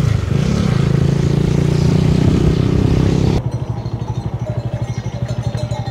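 Motorcycle engine running under wind noise. About three and a half seconds in, the wind hiss cuts off suddenly and the engine goes on quieter, with a slow, even beat.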